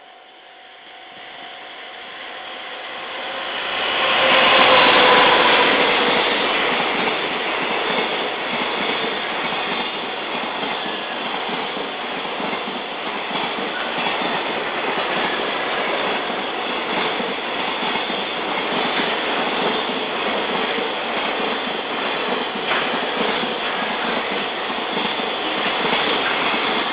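EF200 electric freight locomotive passing close by, loudest about four seconds in, with its pitch briefly falling as it goes by. A long string of Koki container wagons follows, the wheels clacking steadily over the rail joints. A level-crossing warning bell rings as the train comes up.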